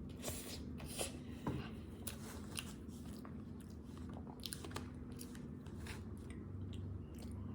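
A person chewing and biting dessert close to the microphone, with many small sharp clicks of the mouth and food throughout.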